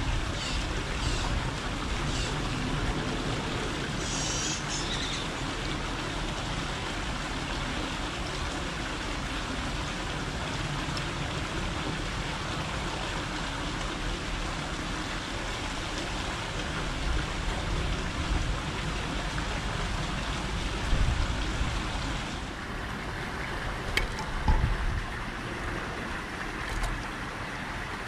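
Steady outdoor background noise with a few short, high bird chirps in the first five seconds. About three quarters of the way through the noise loses its high hiss, and a couple of sharp clicks follow.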